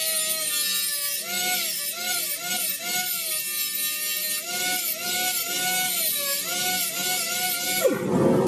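Hand-held pneumatic die grinder grinding the steel of a bandsaw blade: a steady air hiss with a whine that dips and recovers in pitch again and again as the wheel is pressed to the blade. It stops near the end.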